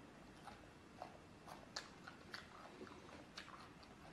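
Fresh cucumber being chewed close to the microphone: a handful of crisp, irregular crunches.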